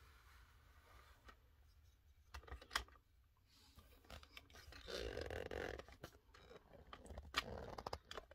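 Faint camera handling noise: scattered clicks and rustles as the camera is moved and re-aimed, with a soft longer rustle about five seconds in.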